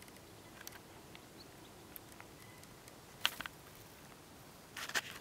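Camera handling noise: sharp clicks and rustles, a short cluster about three seconds in and more near the end, over a faint steady background hiss.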